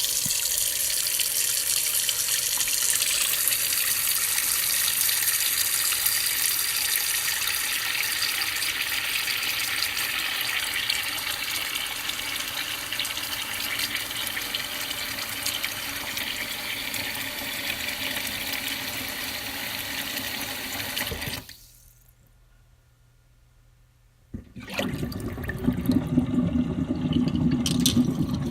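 Kitchen tap running steadily into a sink, shut off suddenly about 21 seconds in. After a few seconds of quiet, the sink starts draining: lower, uneven gurgling water with splashy spikes near the end.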